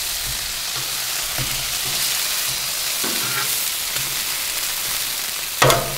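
Beef burger patties and buttered Texas toast sizzling steadily on a hot Blackstone 28-inch Pro Series flat-top griddle, with a brief louder clatter near the end.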